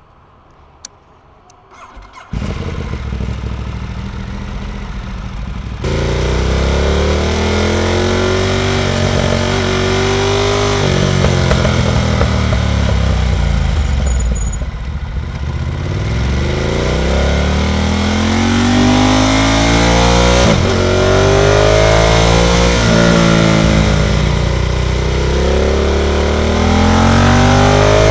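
Ducati Monster 1200S's V-twin engine comes in abruptly about two seconds in, then revs out and drops back again and again as the bike accelerates up through the gears, with wind noise mixed in.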